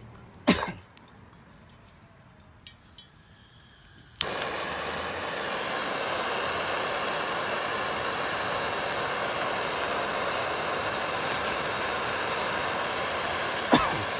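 A sharp knock about half a second in; then, about four seconds in, a propane hand torch lights with a sudden pop and burns with a steady hiss, with another click near the end.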